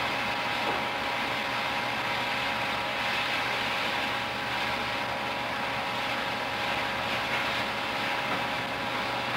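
Steady hiss and roar of a standing steam locomotive letting off steam, from a dubbed sound-effects recording, with a faint steady hum underneath.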